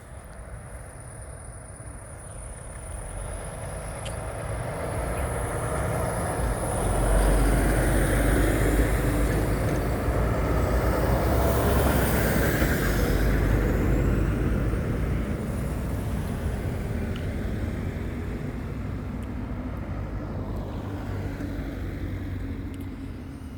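A heavy vehicle passing by: low engine rumble and road noise swell over several seconds, stay loudest for a while in the middle, then slowly fade.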